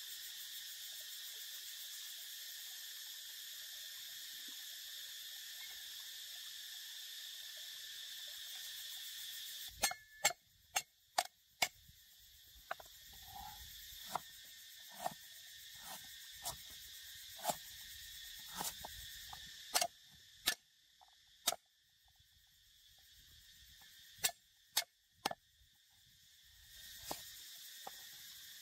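Insects humming steadily for about ten seconds. Then a large knife chops on a wooden chopping block through lemongrass and a red onion, about twenty sharp knocks at uneven intervals, with the insect hum fainter behind them.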